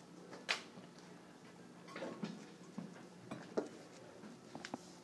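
Quiet room tone with scattered faint clicks and taps: a sharper click about half a second in and a few softer ones later.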